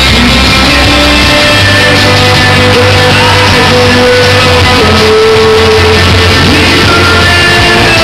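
Live rock band playing at full volume: a male lead singer over electric guitars and drums, harsh and distorted from the camera's overloaded microphone.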